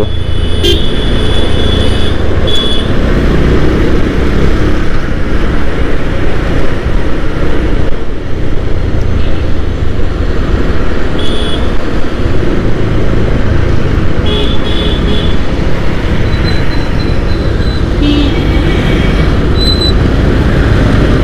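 Bajaj Pulsar 150's single-cylinder engine running on the move in city traffic, with a steady rumble and wind noise on a helmet-mounted camera. Several short horn toots sound over it, about a second in and again several times later on.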